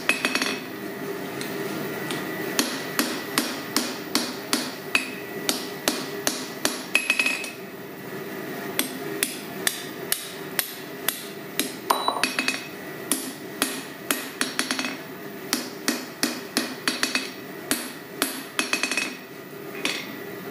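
Hand hammer striking a red-hot square steel bar on an anvil, forging down the sides around a punched hole, in runs of quick blows about three a second with short pauses between runs.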